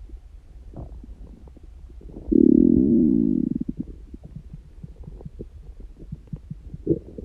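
Human stomach growling: a run of small gurgles and pops, with one loud low rumble about two seconds in that lasts over a second and fades, and a short rumble near the end. It comes from a stomach that growls this much without hunger or a stomachache.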